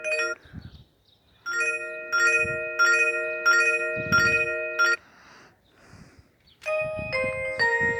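Alcatel OT-2012D phone loudspeaker playing its built-in ringtones. A bright chime-like tone repeats a short three-note figure about every 0.6 s, breaks off, and restarts about a second later. Near the end a different ringtone with a moving melody begins.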